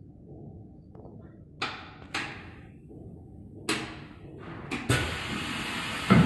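Pneumatic double-head hot press welding machine cycling: several sharp clacks, each with a short hiss of air, then a steady hiss of compressed air from about five seconds in, broken near the end by a heavy thump, the loudest sound.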